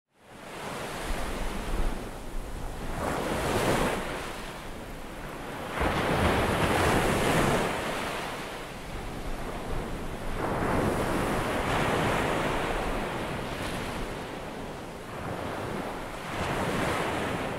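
Ocean surf breaking and washing up a sand beach, the wash swelling and ebbing in slow waves every few seconds. It fades in from silence at the start and fades out near the end.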